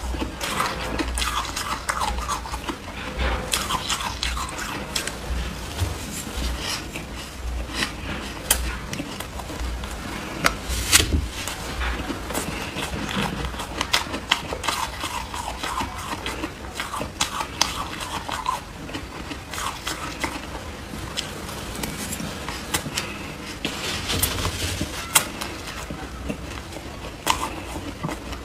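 Soft crunches of powdery shaved ice ("cotton ice") being bitten and chewed, many small crackles in a steady run, with a metal spoon scooping through the ice in the bowl.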